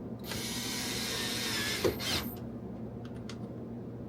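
Cordless drill/driver running for about two seconds, driving a screw, with a sharp click near the end. A steady low hum runs underneath.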